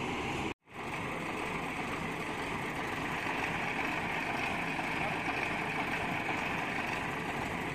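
Crane truck's diesel engine idling steadily, with a brief total dropout about half a second in.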